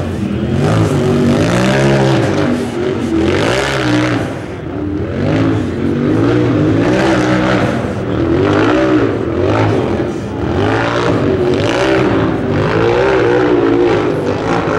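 Off-road buggy's engine revving hard and unevenly, its pitch climbing and dropping again and again as it powers up a steep rocky hill climb.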